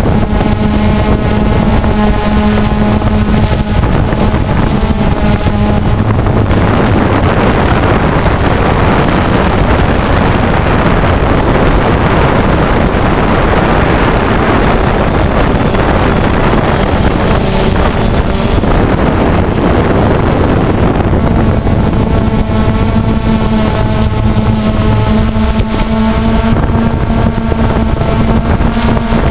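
Electric motors and propellers of a remote-controlled multirotor drone running steadily, heard from on board as a pitched hum. Wind rushing over the microphone masks the hum through the middle stretch, and the hum comes back clearly in the last several seconds.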